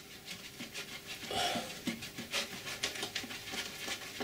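Quick, even panting breaths, about three a second, from a man straining while bent over to work a lathe gearbox's sump plug loose.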